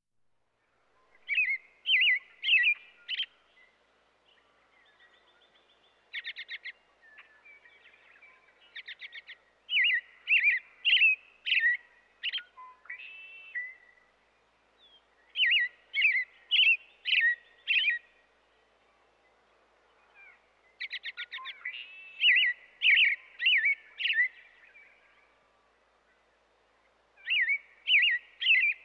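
American robin singing: bouts of four to six short, clear, warbled phrases, separated by pauses of a few seconds, with a few rapid runs of quick chattering notes between bouts.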